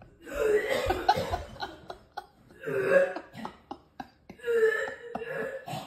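Three bouts of heaving, gagging retching, each a throaty, half-voiced hack lasting about one to one and a half seconds, with short pauses between them.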